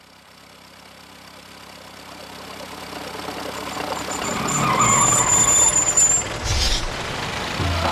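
A rushing rumble that swells from quiet over about five seconds, like something big approaching. A thin high squeal like skidding sounds through it for about a second, followed by a short loud burst about six and a half seconds in.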